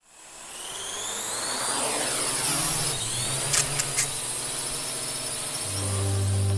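Logo-reveal sound effect: a whoosh that swells up from silence with sweeping high tones, a few quick sparkly ticks in the middle, and a deep sustained bass tone coming in near the end.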